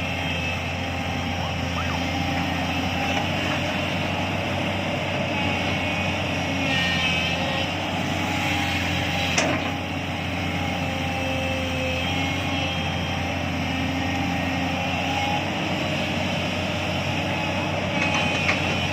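JCB excavator's diesel engine running steadily, with a single sharp knock about nine seconds in.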